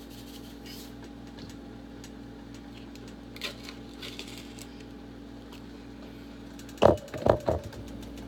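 Seasoning containers being handled at a kitchen counter: a few faint clicks, then three heavy knocks close together near the end, over a steady low electrical hum.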